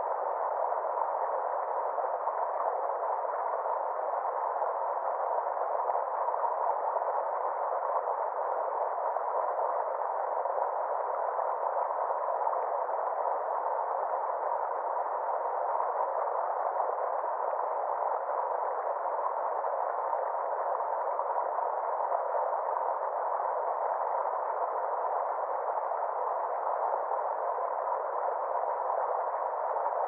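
Small woodland stream spilling over a rock step: a steady, even rush of water with no high hiss and no deep rumble, and a faint steady tone inside it.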